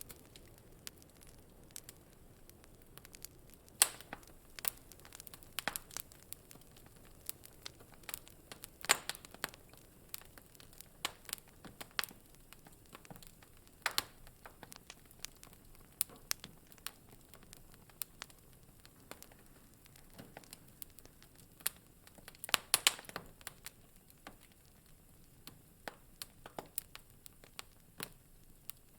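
Wood fire in a fireplace crackling: irregular sharp pops and snaps over a soft low background, with the loudest pops about 4, 9 and 14 seconds in and a quick cluster of them near 23 seconds.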